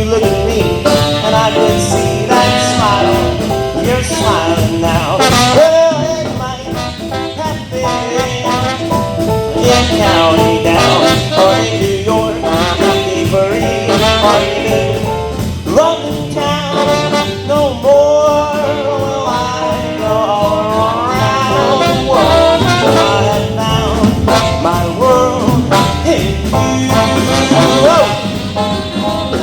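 Live swing and early rhythm-and-blues band playing loudly, with brass horns prominent in the arrangement.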